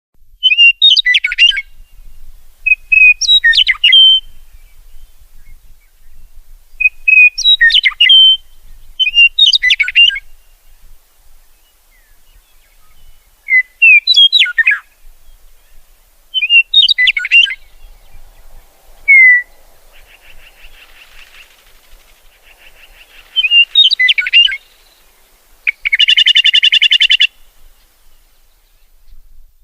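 Songbird singing short, quick whistled phrases about every two to three seconds, with a fainter rapid buzzy trill about twenty seconds in and a loud buzzing note lasting about a second near the end.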